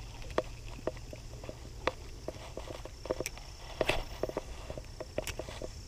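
Footsteps, a string of irregular light knocks and clicks over a low steady rumble. A faint high steady tone comes in about halfway.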